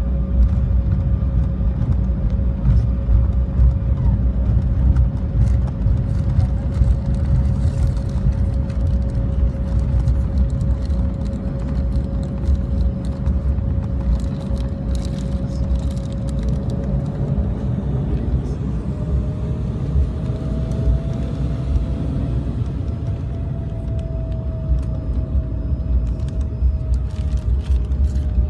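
Jet airliner cabin noise during taxi: a steady low engine rumble with a whine that steps up in pitch a little past halfway through, then eases slightly.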